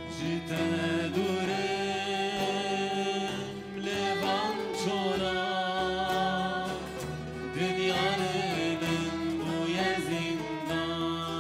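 Live folk music: long-necked saz lutes strumming and plucking with a darbuka drum and violin, under a voice singing a wavering, ornamented melody.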